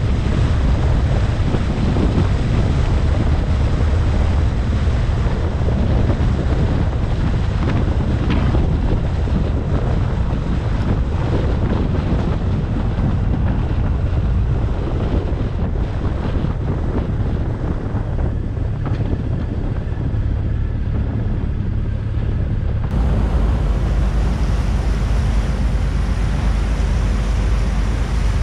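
Wind buffeting the microphone over a steady low rumble. The sound changes abruptly about 23 seconds in, with the rumble becoming deeper.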